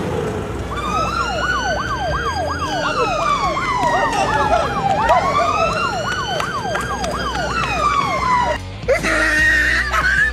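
Police siren: a slow wail rising and falling over about four seconds, layered with a fast yelp sweeping about four times a second. It cuts off suddenly over eight seconds in, and a different, noisier sound takes over.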